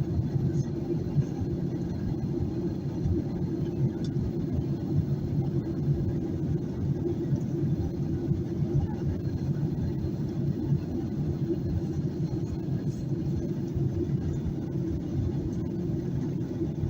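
Boeing 737-800 in flight, heard from inside the economy cabin: a steady low rumble of engine and airflow noise.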